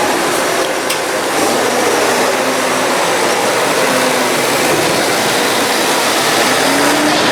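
Tractor engine running hard with loud, steady machine noise, its pitch rising slowly near the end as the revs climb.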